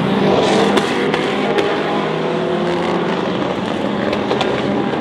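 Endurance race car engines running at speed on the circuit, a steady loud engine note with a few sharp pops through it.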